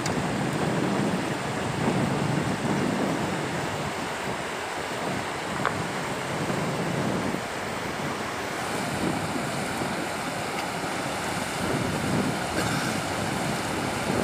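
River water running, with gusts of wind buffeting the microphone in an uneven low rumble.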